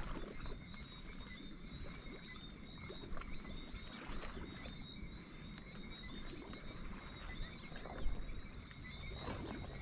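Steady high-pitched chorus of calling animals, holding two unbroken tones, over a low rumble, with a few faint knocks from handling the rod.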